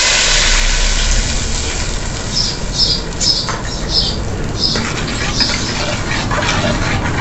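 Blended green tomato and serrano chile salsa sizzling in hot oil in a clay cazuela, a strong hiss that eases off as the salsa frying settles. From about two seconds in, short high-pitched squeaks repeat roughly twice a second over the fading sizzle.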